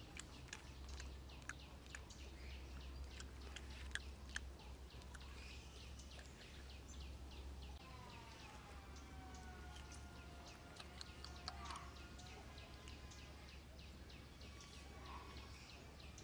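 Faint outdoor ambience with a steady low rumble and scattered small clicks and smacks as a baby monkey chews watermelon. A bird call of several stacked, curving tones comes in about eight seconds in and lasts a few seconds.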